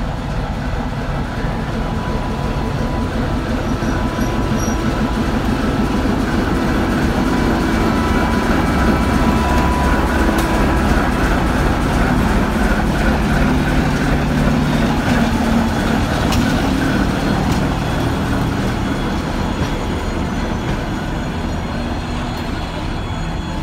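ChME3t shunting diesel locomotive, with its six-cylinder diesel engine, running as it slowly hauls freight wagons past. It grows louder as the locomotive passes close by, then gives way to the rolling and rattling of the wagons' wheels on the rails.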